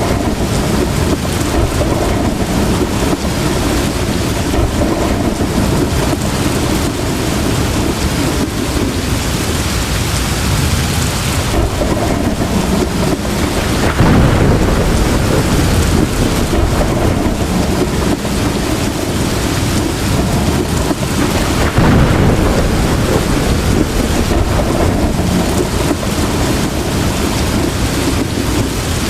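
Heavy rain pouring steadily, with a roll of thunder swelling about halfway through and another some eight seconds later.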